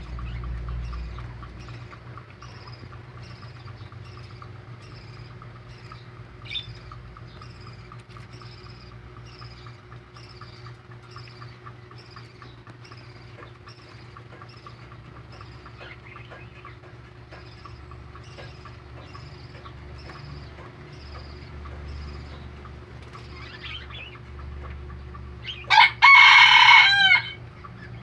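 A rooster crows once near the end, loudly. Throughout, a background of short, high chirps repeats about twice a second.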